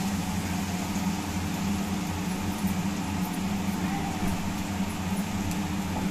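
Chopped onions sizzling in hot oil in a steel kadai on a gas stove, over a steady low hum.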